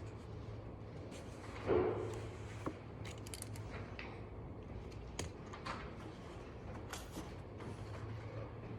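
Quiet library room ambience: a steady low hum with scattered small clicks and taps, and one louder bump about two seconds in.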